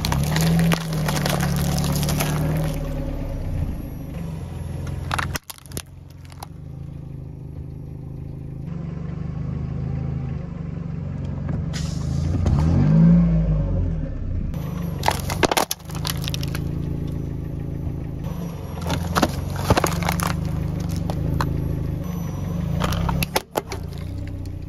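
A car tyre slowly rolls over and crushes a series of objects, including cupcakes in paper cups and a carton of tomato passata that bursts, over the low steady sound of the car's engine. Several bouts of crunching and crackling are heard, spaced a few seconds apart.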